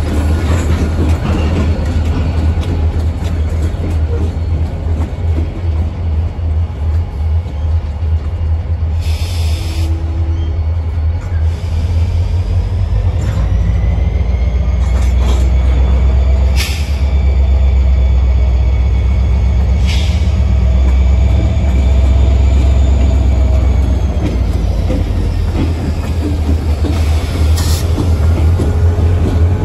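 Freight train with an EMD SD40 locomotive rolling past: a steady heavy rumble of cars on the rails, with thin wheel squeal rising and falling through the middle and four sharp clanks spread across it.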